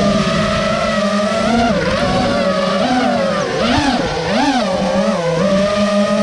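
FPV racing quad's T-Motor brushless motors and propellers whining as it flies, the pitch rising and falling with the throttle, with several quick up-and-down swoops about three and a half to five seconds in.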